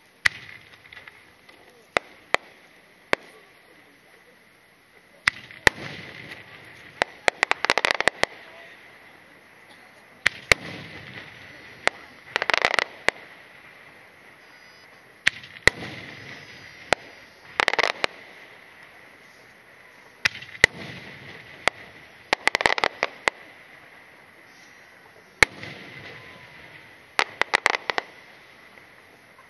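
No. 5 aerial firework shells fired one after another, about every five seconds: each volley is a few sharp bangs followed by a quick dense run of crackling reports as the shell and its rising effects burst. Five volleys in all.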